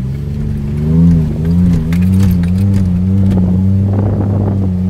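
Toyota Prado 90 series engine running under load as it climbs a soft sand dune, heard from inside the cabin; its pitch wavers for the first couple of seconds and then holds steady. Short rattles and knocks from the cabin come and go over it.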